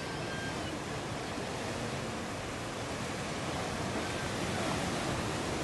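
Ocean surf breaking and rushing steadily, a continuous wash of whitewater that grows a little louder about four seconds in.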